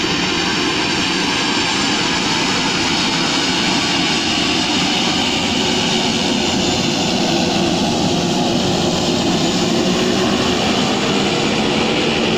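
Twin-engine turboprop plane's engines and propellers running as it rolls along the runway after landing: a loud, steady rushing noise with a high whine on top.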